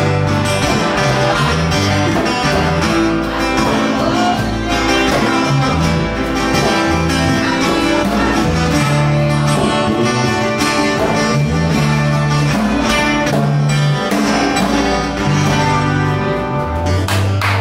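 Live acoustic band playing an instrumental passage: acoustic guitars strummed and picked over electric bass, in an upbeat country-blues style.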